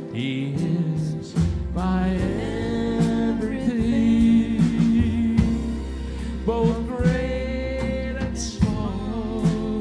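Live church worship band playing a gospel song: a man singing over acoustic guitar, a drum kit and keyboard.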